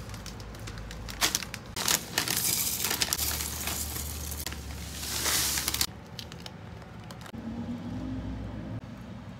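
Corn flakes tipped from a crinkling foil bag into a glass cup, with many small clicks and rustles for about six seconds. From about seven seconds in, milk pours from a carton over the flakes.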